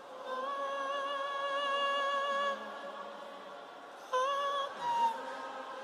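A worship singer holding one long note with vibrato over soft musical backing, then starting a new short phrase about four seconds in.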